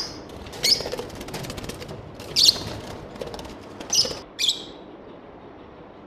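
Lovebirds giving about five short, shrill squawks while one is caught by hand inside a wire cage, with wing flapping and the rattle of the cage wire in between.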